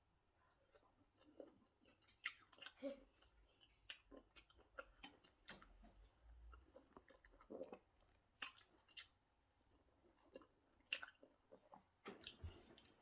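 Close-up mouth sounds of someone eating pounded yam with egusi soup: soft wet chewing and lip smacks in scattered short clicks.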